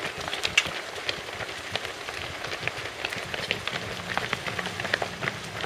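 Footsteps of a pack of runners passing close by: many quick, irregular footfalls of running shoes on pavement and asphalt.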